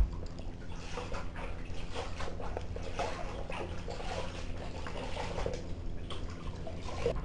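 Kittens eating wet cat food from shallow dishes: a run of irregular wet smacking, chewing and licking clicks, with a low bump right at the start.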